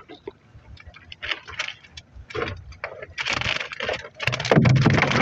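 Irregular rattling, scraping and knocking as a mesh fish trap is handled against the side of a small wooden fishing boat, growing louder and denser from about three seconds in.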